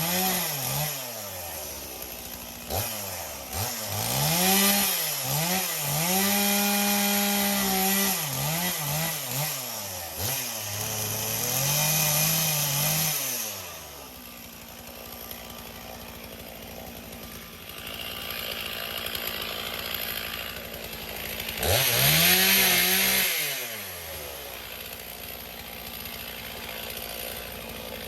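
Two-stroke chainsaw cutting up a fallen branch, revving up and down repeatedly. About halfway through it drops to idle, revs up once more briefly, then idles again.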